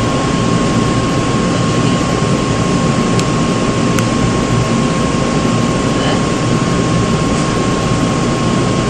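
Seoul Metro Line 2 old 2000-series resistance-controlled electric train running, heard from inside the car: a steady loud rumble with a constant high tone through it. There is a faint click about three seconds in and another about four seconds in.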